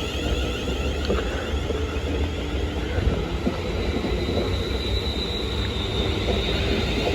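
Electric passenger train running through the station: a steady rumble of wheels on rail, with a faint high whine in the middle.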